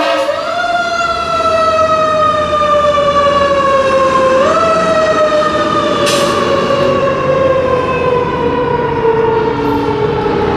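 Fire engine siren sounding as the pumper drives off. It winds up in pitch twice, just after the start and about four and a half seconds in, and slowly falls in pitch after each rise, over the low rumble of the truck. A brief hiss comes about six seconds in.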